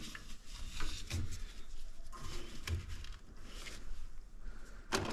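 Faint, irregular rustling with light clicks and soft knocks, typical of gloved hands and tools being handled around an open boiler.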